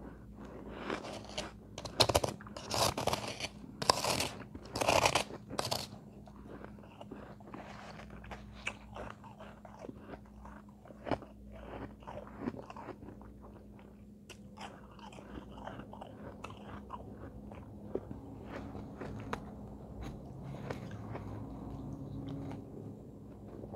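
A person crunching and chewing mouthfuls of soft shaved ice close to the microphone: loud crunching bites in the first few seconds, then quieter crackly chewing for the rest.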